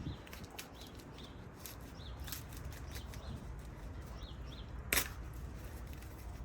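Scattered small clicks and ticks from hand work, with one sharp, loud click about five seconds in. Birds chirp faintly in the background.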